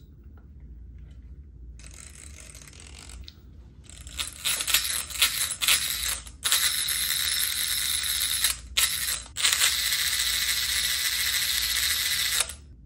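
Hobbywing Fusion brushless motor driving an RC crawler's two-speed gearbox on the bench, the gears whirring with a light rattle. It starts about two seconds in, runs in several throttle stretches with brief stops in the middle, and cuts off near the end.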